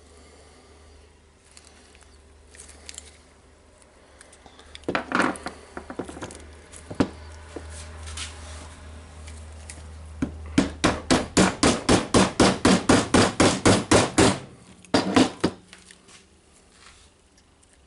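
Hammer tapping repeatedly on a part being driven into a rotary hammer drill's housing. A few knocks come about five seconds in, then a quick, even run of about twenty taps, roughly five a second, and two more just after.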